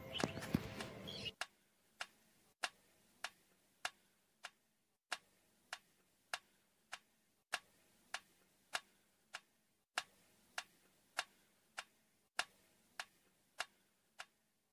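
Steady clock-like ticking, evenly spaced at about three ticks every two seconds, each tick short and dry over near silence. A brief spell of louder, mixed sound comes before the ticking starts, in the first second or so.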